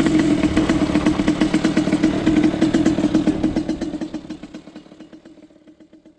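Two-stroke Derbi Senda dirt bike with a Stage6 88cc kit idling at a standstill, fading away over the last two seconds.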